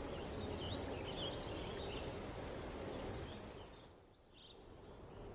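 Faint outdoor ambience with a few scattered bird chirps. It drops almost to nothing briefly about four seconds in.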